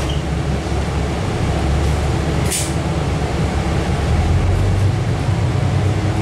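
KiHa 40 diesel railcar's engine running with a deep, steady drone, heard from inside the car, growing louder from about four seconds in as it throttles up to pull away. A brief hiss of air cuts in about two and a half seconds in.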